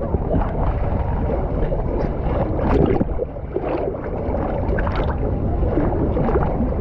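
Water sloshing and gurgling close to the microphone as it floats along a lazy river, with frequent small splashes.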